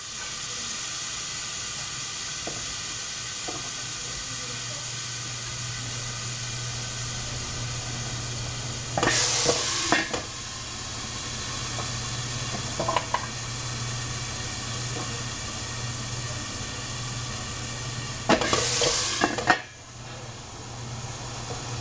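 Mushrooms frying in a pan, a steady sizzle over a low steady hum. Twice, about nine seconds in and near the end, the sizzle flares into a louder hiss for about a second, with a few light clicks between, and after the second flare the sizzle is quieter.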